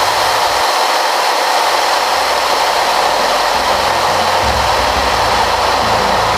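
F4U-4 Corsair's Pratt & Whitney R-2800 radial engine and rushing air, heard from inside the cockpit in flight as one steady, loud, unbroken noise.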